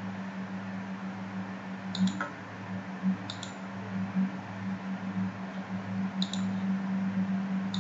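Computer mouse clicking four times, single sharp clicks spaced a second or more apart, over a steady low hum.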